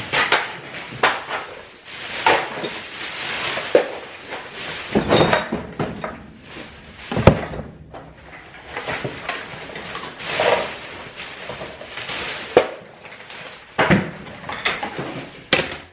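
Hands rummaging through wooden desk drawers: loose objects knock and clatter against the wood, with a plastic garbage bag rustling in between. Sharp knocks come every second or two, the loudest about seven seconds in.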